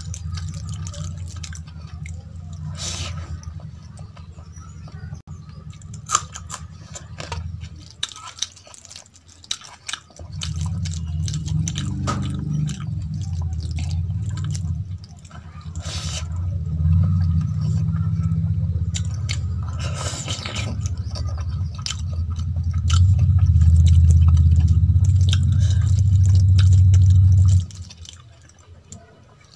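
Wet squishing and clicking of fingers mixing rice with kadhi on a steel plate, with chewing. A deep low rumble runs underneath; it drops out for a couple of seconds about a third of the way in, is loudest near the end, then cuts off abruptly.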